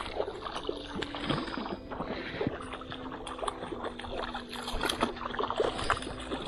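Hooked rainbow trout thrashing and splashing at the water's surface during the fight, a run of irregular splashes.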